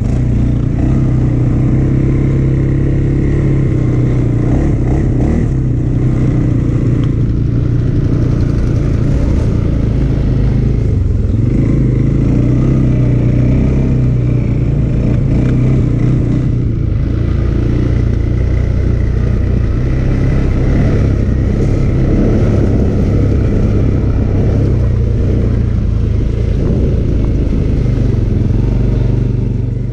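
A CFMoto CForce 600 Touring ATV's single-cylinder engine running steadily under the rider as the quad is driven along a gravel trail, heard from a camera mounted on the machine.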